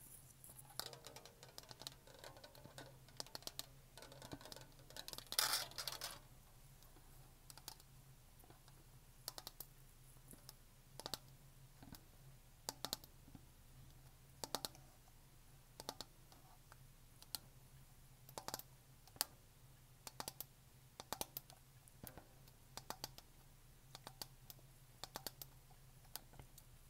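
Long fingernails tapping on a plastic shaker bottle in sharp, irregular clicks of varying loudness, with a stretch of nail scratching over it in the first few seconds that is loudest around five seconds in.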